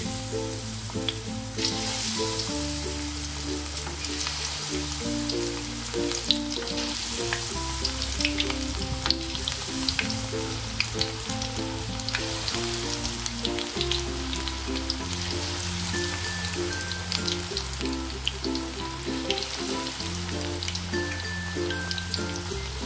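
Battered shrimp deep-frying in hot oil: a steady sizzle with many small crackles and pops. Background music with a stepping bass line plays underneath.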